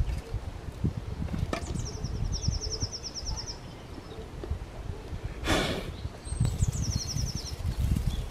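Cleaver chopping a pile of fresh greens on a wooden board, a quick run of dull knocks. A bird sings a short, fast trill twice, about two and about six and a half seconds in, and there is a brief hiss just past halfway.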